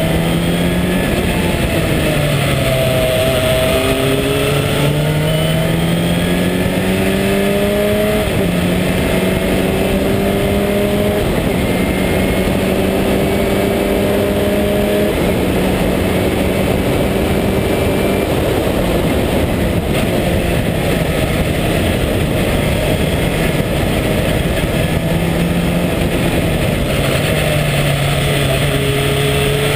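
Sports 2000 race car's four-cylinder Ford 2.0-litre engine at racing speed. It accelerates hard and shifts up about four times in the first fifteen seconds, holds at speed, then eases off and shifts down near the end. Wind rush from the open cockpit runs underneath.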